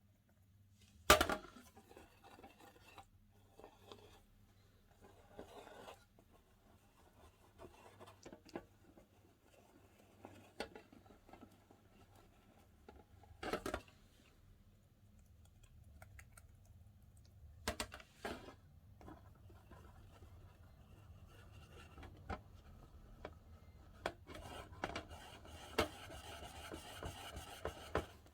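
Slime being worked by hand up close: soft rubbing and squishing with scattered sharp clicks and pops, the squishing growing denser over the last few seconds.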